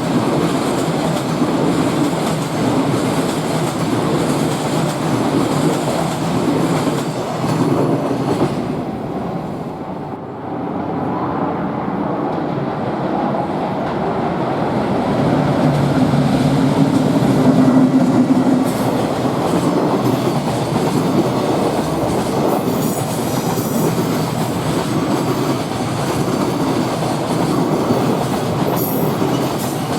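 Freight trains passing close by, their wagons' wheels clattering steadily over the rail joints. About 10 s in, the sound briefly drops and then returns as a second train takes over.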